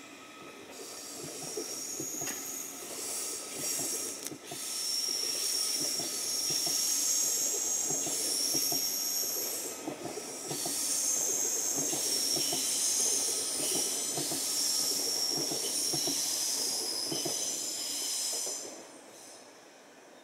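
A train running past on the rails, with a high-pitched squeal in several tones over a fast clatter of wheels. It fades away near the end.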